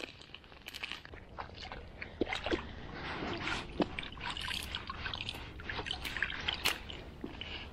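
River water scooped up by hand and dribbled into a plastic tray of dry groundbait, with irregular small splashes and drips as the mix is wetted.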